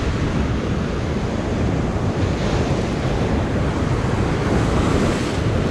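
Ocean surf breaking and washing below, a steady rush of waves, with wind rumbling on the microphone.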